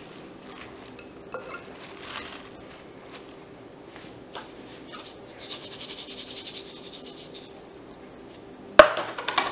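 Shredded raw cabbage rustling and crunching as hands toss and scrunch it in a glass bowl to work the salt in. Around the middle comes a couple of seconds of fine, fast pattering as salt is poured over the cabbage, and a single sharp click near the end.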